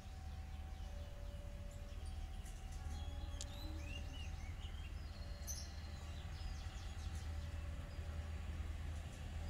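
Low steady rumble of a Plasser multiple tie tamper's diesel engine as the track machine rolls slowly toward the listener, with birds chirping over it. A faint two-note tone alternates about once a second.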